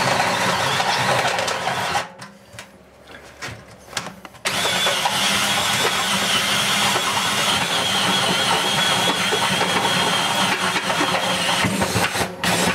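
Cordless drill driving a step drill bit through a stainless-steel sink deck, metal cutting. It runs for about two seconds, pauses, then runs steadily for about seven seconds with a high whine before stopping near the end.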